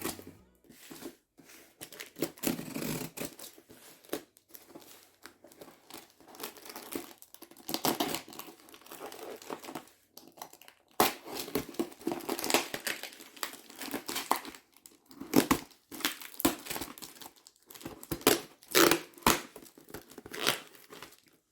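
Packing tape being torn and peeled off a cardboard shipping box, with crinkling and rustling of the box and packaging in irregular rasping strokes that come thicker and louder in the second half.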